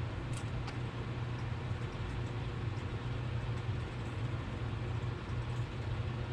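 Steady low mechanical hum with a background hiss. A few faint light clicks come about half a second in, as small parts are handled on a leaf blower.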